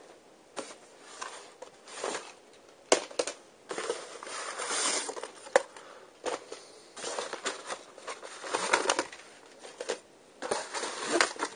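Plastic and cardboard packing material being handled, rustling and crinkling in irregular bursts with a few sharp clicks.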